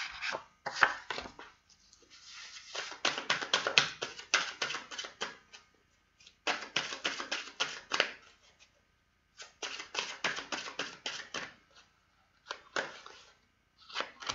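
A deck of tarot cards being shuffled by hand: quick runs of rapid card clicks and flicks, four or five runs of a second or two each, with short pauses between.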